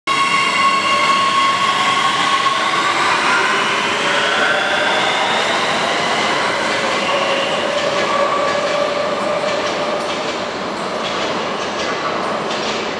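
MX3000 metro train pulling out of the station. Its traction motors give a whine of several tones that rises in pitch as it speeds up, under the rumble of the train, and the sound fades as it leaves.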